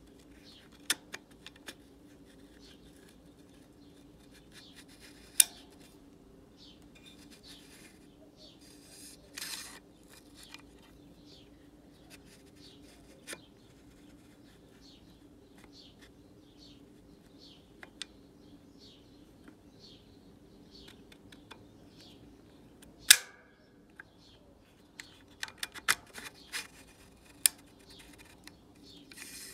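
Sharp metallic clicks and snaps of an AR-15's action with a Rare Breed FRT-15 forced-reset trigger being worked by hand: charging handle, bolt carrier and trigger parts. The clicks come singly and scattered, the loudest snap about 23 seconds in, then a quick run of clicks near the end.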